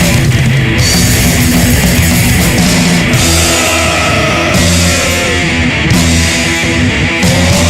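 A punk rock band playing loud: distorted electric guitar, bass guitar and drum kit with crashing cymbals, with a few sliding notes that fall around the middle and rise near the end.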